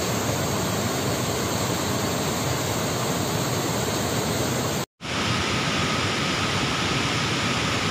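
Forest stream rushing over boulders, a steady, even rush of white water. It cuts out abruptly for a moment about five seconds in, then a similar steady hiss carries on.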